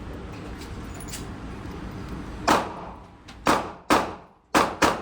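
Six gunshots in an irregular string, starting about halfway in, each a sharp bang with a short echo.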